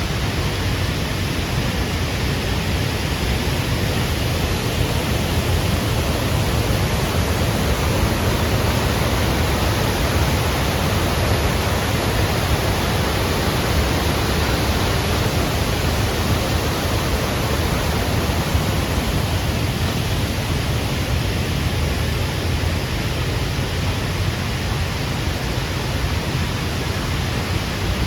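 Water rushing over the Lechfall waterfall, a loud, even noise that holds steady without a break.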